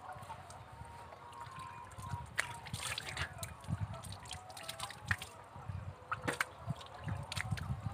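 Thin stream of well water from a hose trickling and splashing into cupped hands, with irregular drips and splashes as the water is thrown onto a face.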